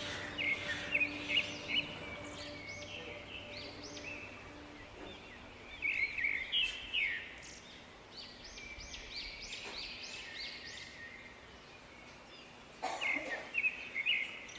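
Small birds chirping in quick runs of short rising-and-falling notes, loudest in two clusters, one about six seconds in and one near the end.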